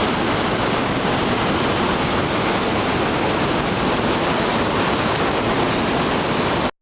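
Iguazú Falls: the steady, loud rush of a huge waterfall crashing down, cutting off suddenly near the end.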